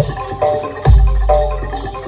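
Live gamelan-style accompaniment for a bantengan dance. Pitched metal gong-chimes repeat a short figure over a deep bass stroke that falls about every second and three-quarters, once about a second in.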